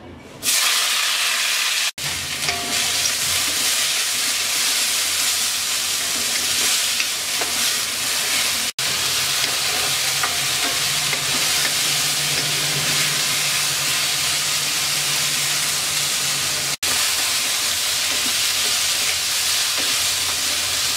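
Parboiled diced potato, carrot, cauliflower and peas sizzling in hot oil in a metal wok, starting about half a second in as they are tipped in, then stirred with a spatula. The sizzle is steady, with three brief gaps.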